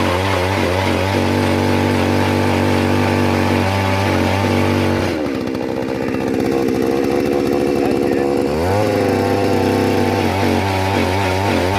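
Small gasoline engine running steadily, then dropping to a lower, rougher pitch about five seconds in, as if under load, and rising back to its earlier speed near nine seconds.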